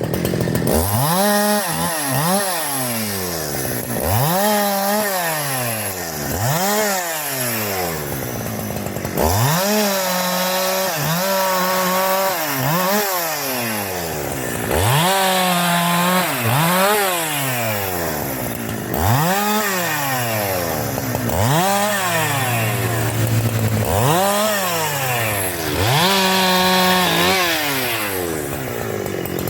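Husqvarna 372 XP two-stroke chainsaw revved again and again, its engine pitch climbing and falling every second or two, with some revs held for a second or so at high speed.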